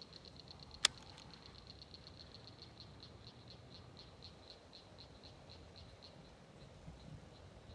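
A frog calling a steady series of short, high clicking notes, about four or five a second, fading near the end. A single sharp click sounds about a second in.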